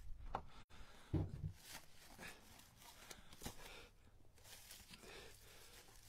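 Split firewood pieces knocking together as they are pulled from a woodpile, with dry leaves rustling underfoot and one dull thump about a second in.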